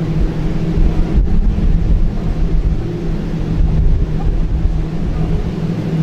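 Wind buffeting the camera microphone: a loud, uneven low rumble, with a steady low hum underneath.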